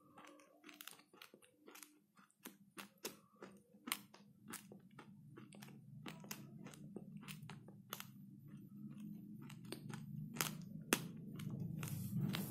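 A person chewing food close to the microphone, with many sharp wet clicks and smacks of the mouth and lips over a low rumble.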